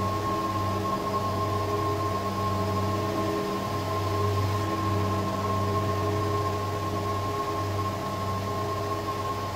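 Steady ambient drone: a low hum with a fainter high tone held over a constant hiss, unchanging throughout.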